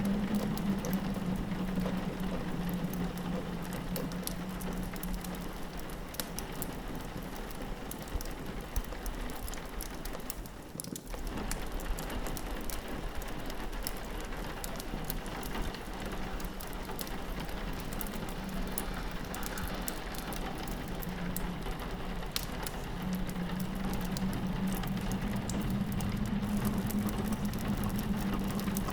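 Steady rain pattering against a window, mixed with the fine, irregular crackles of a wood fire and a constant low hum beneath, with a brief lull about eleven seconds in.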